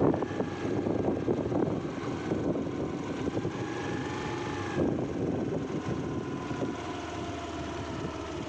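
Small motorbike running steadily while riding along a rough dirt road, with a faint wavering whine over road and wind noise and irregular knocks from the bumps.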